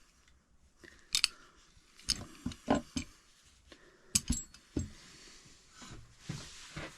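Metal hand tools being handled and set down: several light, irregular clinks and clicks, then a soft rustle near the end.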